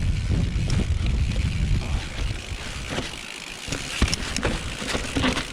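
Mountain bike descending a steep, muddy trail: a low rumble of wind on the microphone and tyres on dirt for the first couple of seconds, then quieter, with sharp knocks and rattles of the bike from about four seconds in.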